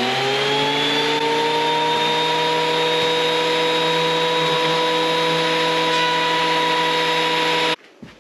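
Benchtop thickness planer's motor and cutterhead coming up to speed over about a second, then running steadily; it stops abruptly shortly before the end.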